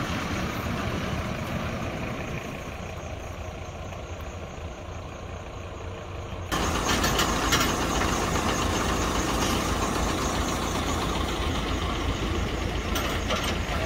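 Isuzu tilt-tray tow truck's diesel engine running as the truck moves off, easing slightly quieter. About halfway through it cuts abruptly to a louder, closer engine sound with road noise.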